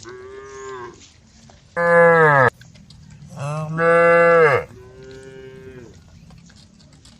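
Cows mooing: four calls in a row, a softer one, then two loud ones whose pitch falls at the end, then another softer one.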